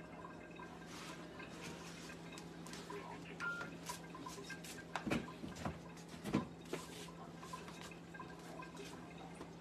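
Scattered light clicks and taps over a steady low hum, with two louder knocks about five and six and a half seconds in.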